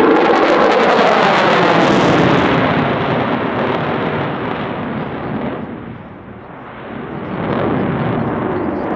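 Jet engine noise from an F-16C Fighting Falcon flying its display, a loud continuous roar that fades to its quietest about six seconds in and then builds again.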